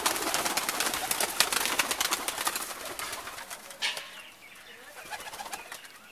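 Domestic pigeons flapping their wings, a dense clatter of wingbeats that eases off after about three seconds, with one last flurry near four seconds.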